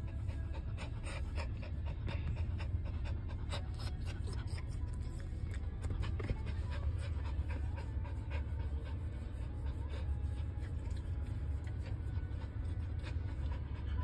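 Small dog panting steadily with its mouth open, over a steady low rumble.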